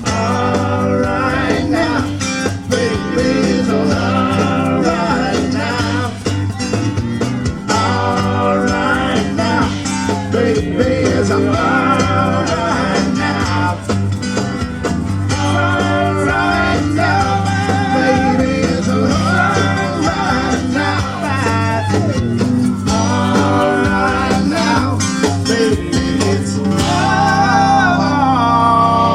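Blues-rock band music with guitar, a steady bass and a wavering lead melody line.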